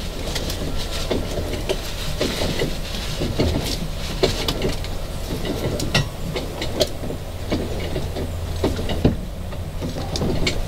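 Freshly greased outboard steering rod being worked in and out as the Yamaha F70 is swung from side to side: irregular metallic clicks and knocks over a steady low hum.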